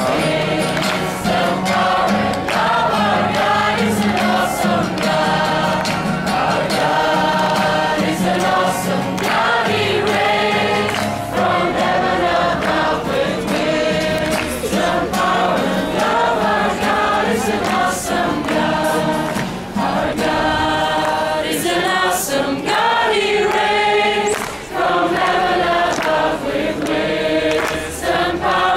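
A large crowd of people singing a Christian worship song together, many voices at once.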